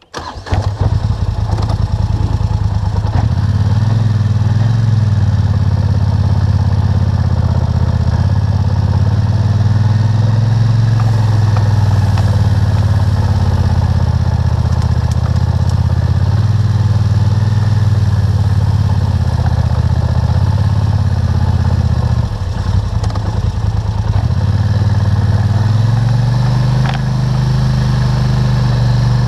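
ATV engine starting and then running steadily, picked up close by a camera clamped to the four-wheeler, with a brief drop in level about two-thirds of the way through.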